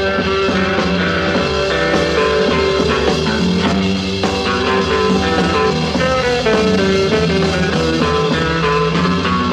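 Rock band playing an instrumental break between sung verses, with guitar among the instruments.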